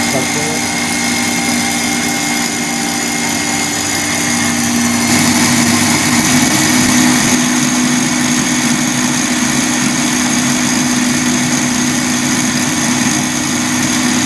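Electric stand mixer running steadily, its wire whisk beating egg whites in a stainless-steel bowl until they hold the whisk's trails, the first stage of an Italian meringue. The sound grows a little louder and brighter about five seconds in.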